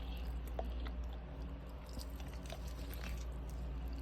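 A person chewing a crispy fried barbecue chicken wing, with small crunches and mouth clicks, over a low steady hum.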